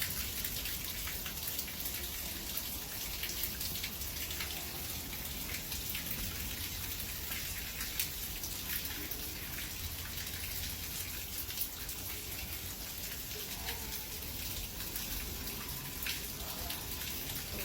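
Steady rain, with many individual drops ticking sharply and irregularly on a hard surface.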